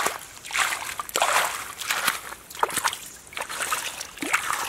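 Shallow stream water sloshing and splashing as a stick is pushed and stirred through leaf litter on the bottom, in an irregular series of short splashes.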